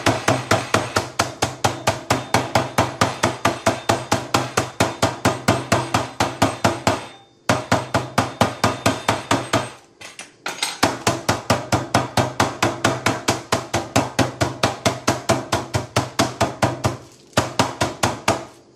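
A wooden meat mallet pounds a chicken breast flat through a plastic bag on a plastic chopping board: fast, even knocks, about four or five a second, with three short breaks.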